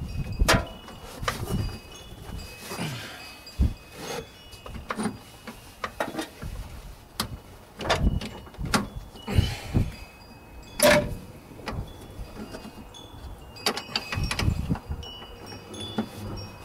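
Irregular clicks and knocks of hand tools and metal parts being handled at a truck's clutch master cylinder and its hydraulic line on the firewall, with the sharpest knocks about half a second in, around eight to nine seconds in, and about eleven seconds in.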